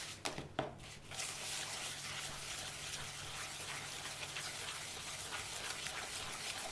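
Eggs being mixed into creamed butter and sugar in a mixing bowl: continuous wet stirring and scraping with many small clicks, over a faint low hum.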